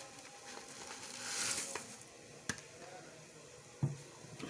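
Boiling tomato-and-onion broth bubbling and hissing faintly in a frying pan as blocks of instant noodles go in. The hiss swells about a second in, with a sharp click in the middle and a dull thump near the end.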